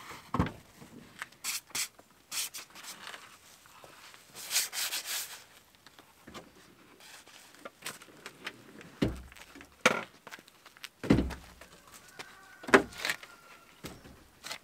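Clicks, clunks and rattles of a bicycle being handled and fitted onto a bike rack at the back of a car, with a short scraping rustle about four and a half seconds in and several heavier thumps from about nine seconds on.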